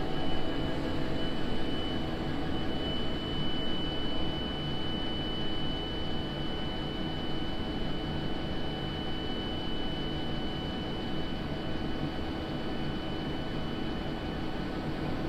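Laser engraver running an engraving job with its fume extractor switched on: a steady fan hum and hiss with a faint, steady high tone.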